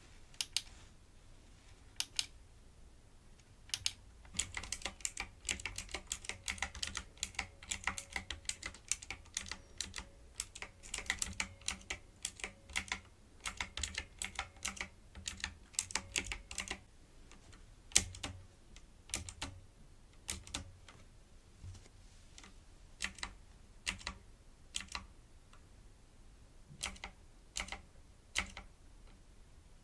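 Typing on a typewriter-style keyboard: a few scattered key clicks, then quick, steady typing for about thirteen seconds. After that come slower, sparser keystrokes, with one louder clack about eighteen seconds in.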